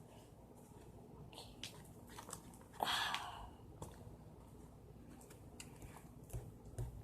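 Glue-based slime being stirred in a bowl as it starts to thicken. Faint sticky squelches and light clicks, with one louder wet squish about three seconds in.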